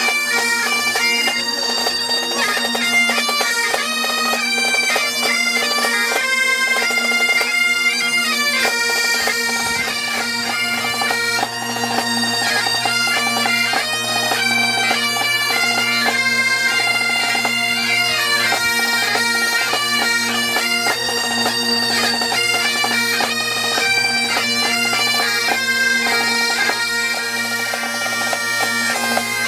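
Great Highland bagpipes, several played together, sounding a tune over their steady drones, with a snare drum beating along.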